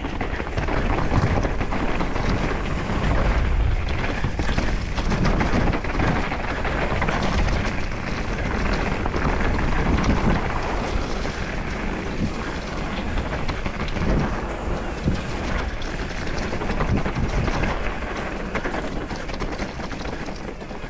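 Trek Slash mountain bike running down a dirt trail: steady rushing noise of wind on the microphone mixed with the tyres and frame rattling over the ground.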